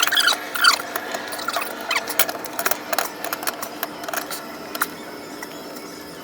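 Irregular sharp clicks and short squeaks from hand work on metal vise hardware and wood, over a faint steady hum.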